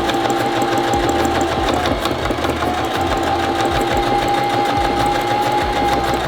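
Electric sewing machine stitching binding onto window screen mesh, its motor hum and needle rattle steady. The motor slows briefly about two seconds in, speeds back up, and stops near the end.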